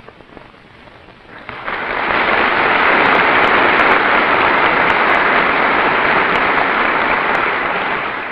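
Large audience applauding: the clapping rises about a second and a half in, holds steady, then dies away near the end.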